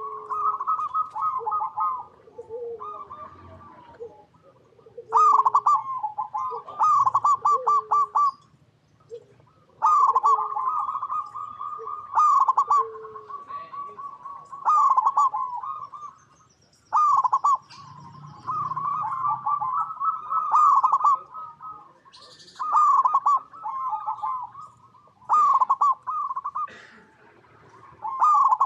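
Zebra doves cooing: a string of loud phrases of rapid, rolling notes, each a second or two long and repeating every couple of seconds, with softer, lower falling notes in the gaps between them.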